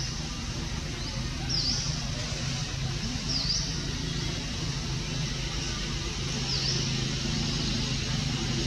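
Outdoor ambience: a motor vehicle's engine runs steadily as a low hum, while a bird gives short, high chirps every second or two.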